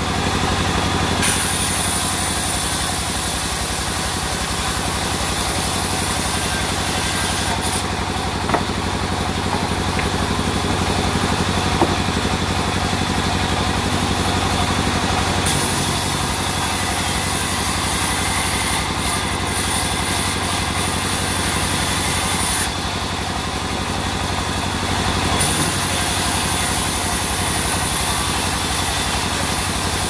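Sawmill vertical band saw running steadily and ripping a teak log lengthwise: a constant machine drone, with a hissing cutting sound that comes and goes in long stretches and a couple of light knocks.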